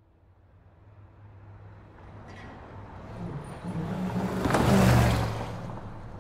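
A road vehicle passing close by: its engine hum and tyre noise swell over several seconds, peak about five seconds in, then fall away to steady traffic noise.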